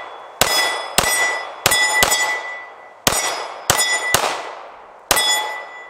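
Stoeger STR-9C 9mm compact pistol fired eight times at a steady pace, about one to two shots a second. Each shot is followed by the ringing clang of a struck steel target.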